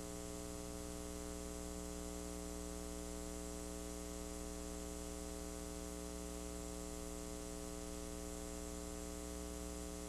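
Steady electrical hum and buzz with a layer of hiss, a constant pitched drone with many overtones, picked up in the audio track of a broken VHS camcorder.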